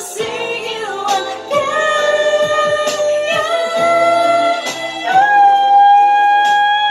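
A woman singing over a backing track, holding long notes that climb step by step in pitch. The last note starts about five seconds in and is held steady, while drum hits keep time underneath.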